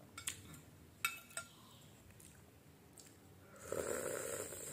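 A metal spoon clinks a few times against a glass bowl while scooping instant noodle soup. Near the end comes a louder slurp as the soup is sipped from the spoon.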